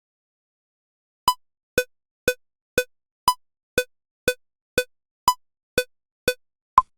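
Cubase software metronome clicking at two clicks a second, starting about a second in. Every fourth click is a higher-pitched accent marking the downbeat of each bar. Near the end the click changes to a different sound as a new click sound is selected.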